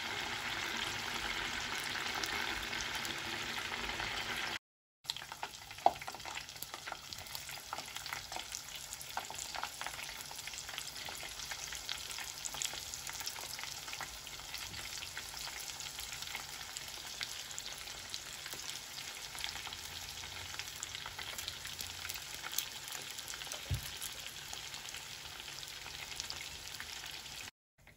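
Chicken wings deep-frying in a pot of hot oil: a steady crackling sizzle, with a few sharp clinks from the utensil turning them. The sound breaks off briefly about five seconds in and again near the end.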